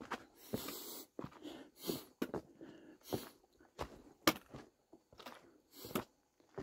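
A hiker's footsteps on a dirt trail, an uneven step about every half second, each with a short gritty scrape.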